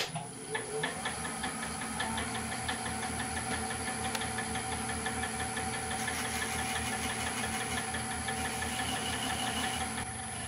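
Wood lathe starting up and running steadily with an oak barrel blank spinning on it, its motor humming with a regular low pulsing.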